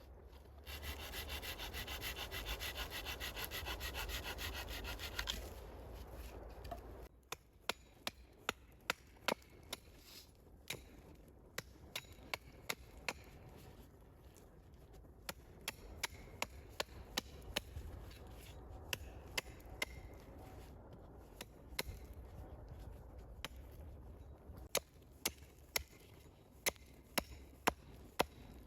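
Hand tools working wood: a few seconds of steady, fast rasping like sawing or scraping, then a long run of sharp, irregular wooden knocks and clicks.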